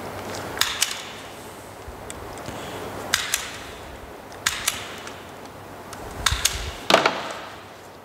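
Sharp clicks and knocks, mostly in close pairs, every second or two. The last, near the end, is the loudest.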